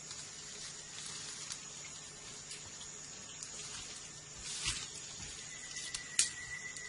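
Steady high-pitched insect drone, with a handful of scattered sharp clicks and knocks from someone working at the ground in leaf litter with a hand tool. The loudest click comes near the end, and a faint thin steady whistle joins over the last second.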